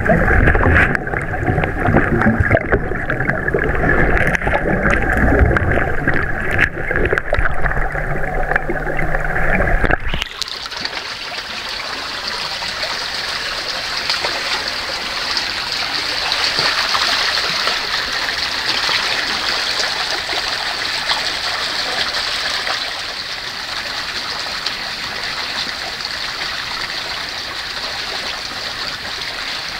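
Muffled underwater rumble, which changes abruptly about ten seconds in to the steady rush of water flowing out from under the rock at the mouth of a spring cave.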